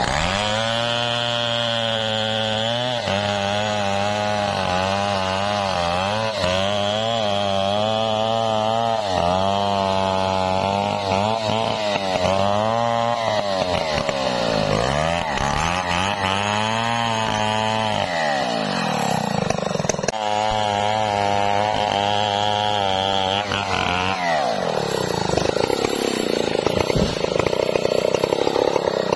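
Two-stroke chainsaw cutting through a jabon tree trunk, its engine note rising and falling with the load of the cut. About 24 seconds in the steady engine note gives way to a rougher, noisier sound that grows louder near the end.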